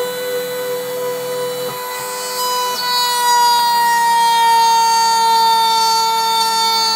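Rotary-tool spindle of a small Mantis-30 CNC mill whining at high speed as its bit routes a pocket in wood. The whine is loud and steady, dipping slightly in pitch about three seconds in.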